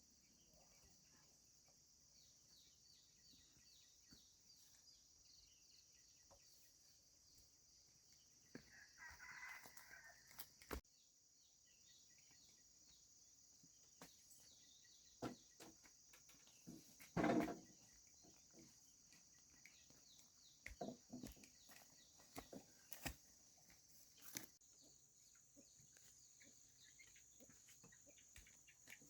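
Domestic chickens calling a few times, a drawn-out call about a third of the way in and a short, louder one near the middle, over a steady high chirring of insects, with a few faint scattered taps.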